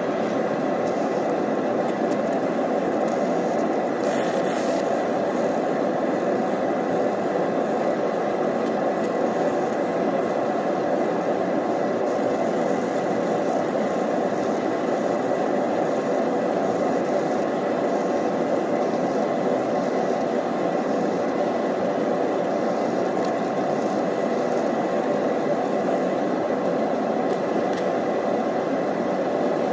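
Steady rush of a fume extractor drawing air through a flexible foil duct, with a faint steady tone under it and a brief high hiss about four seconds in.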